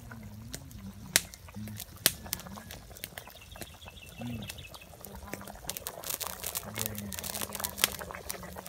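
A wide pan of beef-innard broth boiling hard over an open wood fire, with scattered pops and crackles that grow denser a little past halfway. Low, distant voices murmur underneath.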